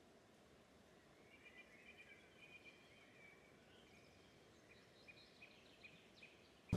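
Faint bird calls over quiet outdoor background noise: a short warbling phrase about a second in, then a run of short, evenly spaced chirps. A sudden louder sound breaks in at the very end.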